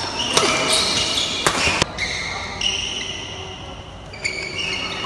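Badminton rally: rackets striking the shuttlecock, three sharp hits within the first two seconds, with shoes squeaking on the court floor.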